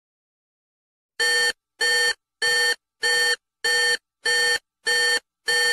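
Electronic alarm beeping: eight identical short beeps, about one and a half per second, starting about a second in.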